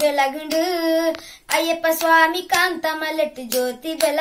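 A boy singing a Tulu devotional bhajan solo, with no accompaniment, holding long notes; one note about a second in wavers in pitch.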